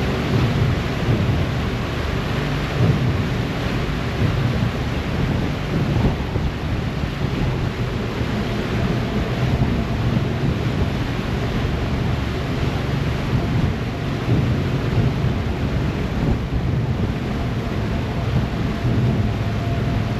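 Harbour ferry under way: a steady low engine drone mixed with the rushing, churning wake behind the stern and wind buffeting the microphone.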